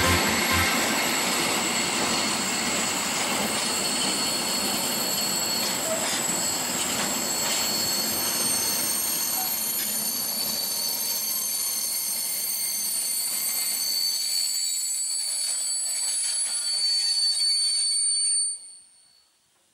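Freight train of empty container flat wagons rolling past behind an SBB Cargo class 482 electric locomotive, the wheels squealing in several high steady tones over the rolling noise. The sound fades out quickly near the end.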